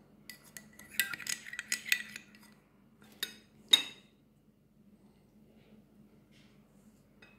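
Metal serving spoon clinking against the salad bowl: a quick run of small clinks about a second in, then two sharper strikes around three seconds in, the second one the loudest.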